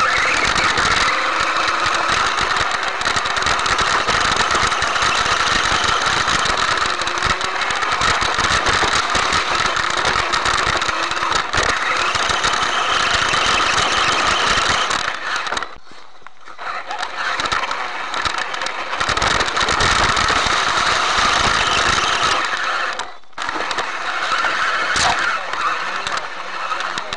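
Electric RC off-road car's motor and drivetrain running, with chassis rattle over rough forest ground, heard through the car's onboard camera. The sound drops away for about a second a little past halfway and again briefly a few seconds later.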